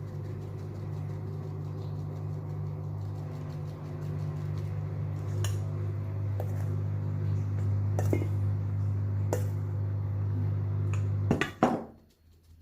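A steady low electric hum with light clinks of kitchen bowls and utensils. Near the end come two louder clatters, and the hum cuts off.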